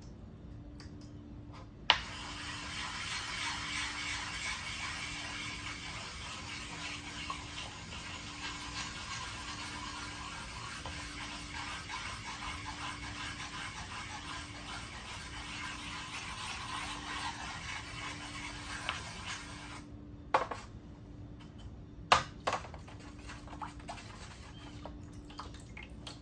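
A wet whetstone being rubbed back and forth against another stone: a steady gritty scraping that starts about two seconds in and stops near the twenty-second mark. It is followed by a few sharp knocks as the stones are handled.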